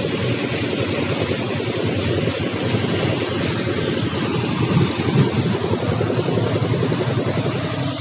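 Concrete mixer's engine running steadily as wet concrete is fed down the chutes.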